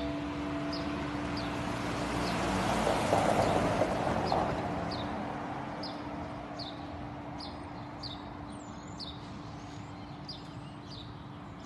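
The church bell's last ring dies away in the first second, leaving a low steady hum. A vehicle passes with a rushing sound that swells to its loudest a few seconds in and then fades. A small bird keeps chirping with short, falling chirps about once or twice a second.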